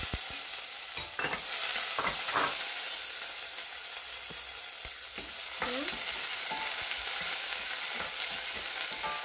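Onions sizzling steadily in hot oil in a stainless steel pan, stirred with a wooden spoon that knocks and scrapes against the pan now and then.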